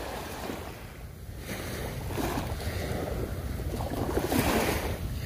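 Small waves washing in and breaking on a pebbly shoreline, the fizzing wash swelling twice, about two seconds in and again near the end, with low wind rumble on the microphone.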